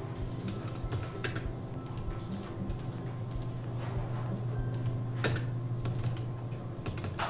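Computer keyboard and mouse clicks: a few scattered sharp clicks over a steady low hum.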